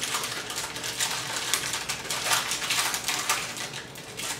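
Many light clicks and taps with paper rustling as baked macaron shells are peeled off parchment paper, flipped upside down and set down on a plate.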